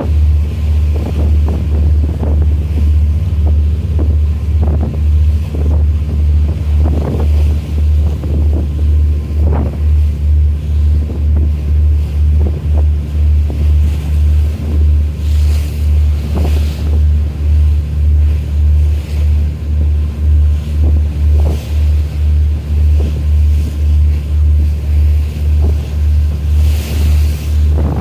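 A large ship's engine throbbing in a low, steady beat about twice a second, with wind on the microphone and sea noise over it.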